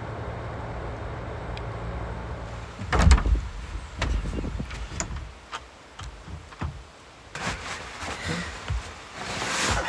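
Steady low drone of a car's engine and road noise heard from inside the cabin while driving. About three seconds in comes a heavy thump, followed by scattered knocks and clicks and a swell of noise near the end.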